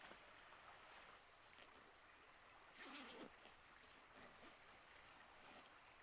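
Near silence: faint outdoor ambience, with one brief soft rustle about halfway through.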